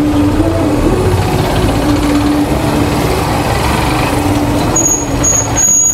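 Suzuki GSR 150 single-cylinder motorcycle engine running at low speed in slow, dense city traffic, with the noise of the surrounding traffic. A steady mid-pitched tone comes and goes, and a high thin tone sounds for about a second near the end.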